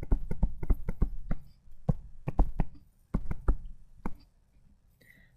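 A stylus tapping and clicking on a tablet screen during handwriting, a run of irregular sharp taps that thins out and stops near the end.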